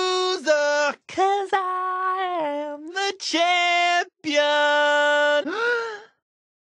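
A woman's voice singing the closing held notes of a pop song, the last note falling away and the song ending about six seconds in.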